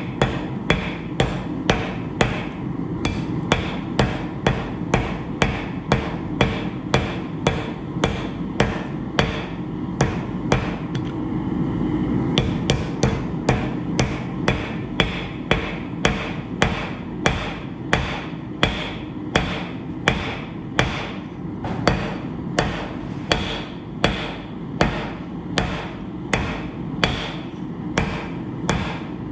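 Heavy hand hammer striking hot steel on an anvil in a steady rhythm of about two blows a second, forge-welding the layers of a hatchet. There is a short pause in the blows about eleven seconds in.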